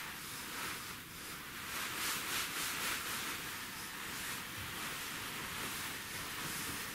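Soft rustling over a steady hiss, strongest about two to three seconds in.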